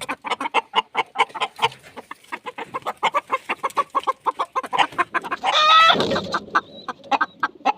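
A flock of chickens clucking, many short clucks a second, with one louder drawn-out squawk about five and a half seconds in.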